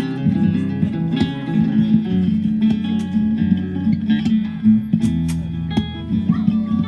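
Gypsy jazz guitar with an oval soundhole, picked and strummed, amplified, over a sustained looped accompaniment.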